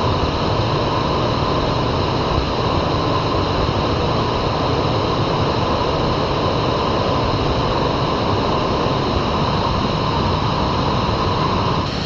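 Waterfall pouring, a loud, steady rush of water that changes abruptly near the end.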